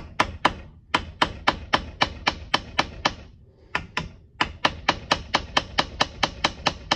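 Hammer tapping a Torx bit into a broken steel thumb screw, driving it in to get a grip for backing the screw out. Quick, light metal strikes at about four a second, with a short pause about halfway through.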